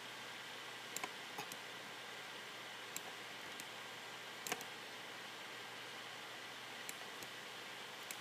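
About ten faint, sharp clicks at a computer, scattered irregularly, the loudest about four and a half seconds in, over a steady room hiss.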